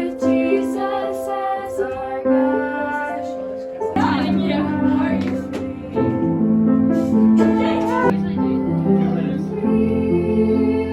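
Background music: a song with a woman singing over instrumental accompaniment, which grows fuller with lower notes about four seconds in.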